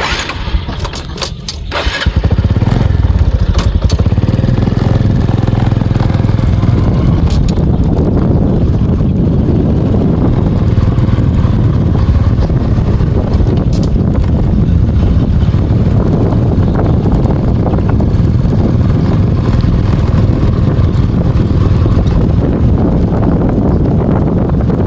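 Motorcycle engine running with a steady low rumble, after a couple of seconds of clicks and knocks at the start.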